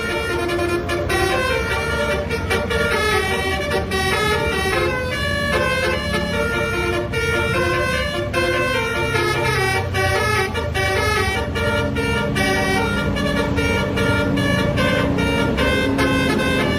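Tour bus's basuri (telolet) multi-tone horn playing a quick melody, several notes a second, over the low hum of the bus's engine.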